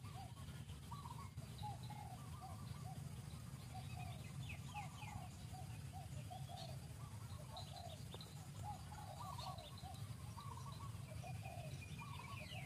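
Birds chirping in the surrounding foliage: short calls repeated two or three times a second, with higher quick falling chirps in bursts, over a steady low rumble.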